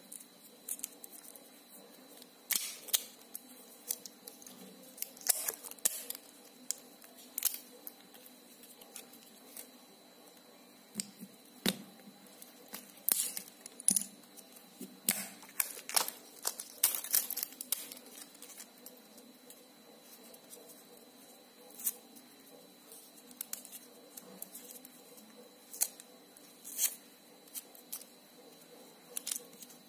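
Small plastic coil housing being handled and prried apart by hand: irregular clicks, scrapes and rustles as the blue plastic cover is worked off the coil bobbin, busiest around the middle.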